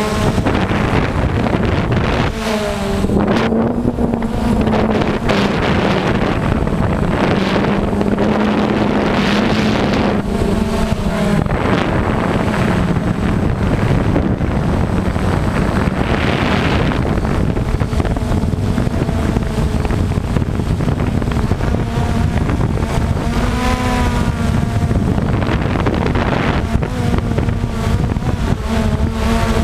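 DJI Phantom quadcopter's motors and propellers buzzing, heard from the camera on the drone itself, with wind noise on the microphone. The buzz holds a steady low pitch while its higher tones drift up and down as the drone manoeuvres.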